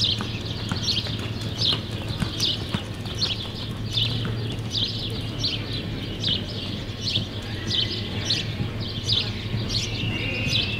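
Reining horse loping on arena dirt: an even beat of strides a little under two a second. A bird's short whistling call comes in near the end.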